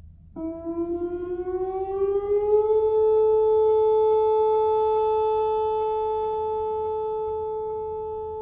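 Whelen WPS-4004 electronic outdoor warning siren starting its monthly test. It comes on suddenly, glides up in pitch for about two seconds, then holds one steady tone that slowly grows a little fainter.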